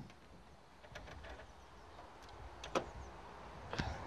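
Faint handling noises around the car's front: a few light clicks and taps, the sharpest about three seconds in.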